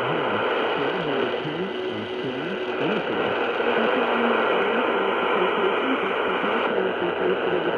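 Loud, steady hiss of static from a weakly received radio broadcast, with faint wavering tones that rise and fall in pitch beneath it during the first few seconds.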